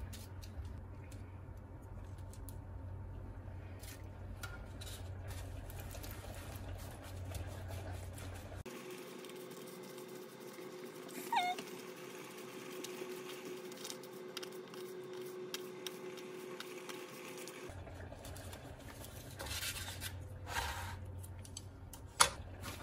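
Wooden chopsticks stirring natto in its plastic tray: soft sticky squishing with light clicks and scrapes. A brief high whine rises and falls about halfway through, and a single sharp tap comes near the end as the chopsticks are laid down on the wooden board.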